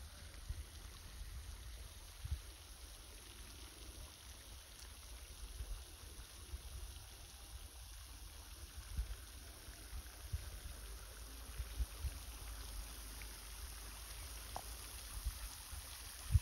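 Low, uneven rumble of wind buffeting the microphone, with a few soft knocks and a faint steady hiss.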